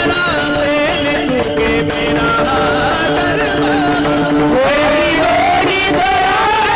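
Devotional kirtan music: several held steady notes over jingling percussion strokes, with a singing voice whose line bends upward about four and a half seconds in.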